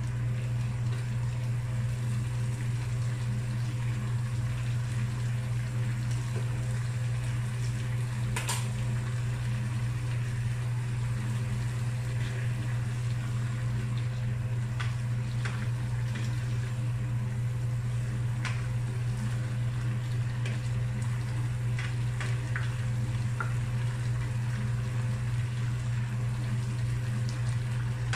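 Moringa pods and vegetables sizzling in sauce in a nonstick frying pan while a spatula stirs them, with occasional clicks and scrapes of the spatula against the pan. A steady low hum runs underneath and is the loudest sound throughout.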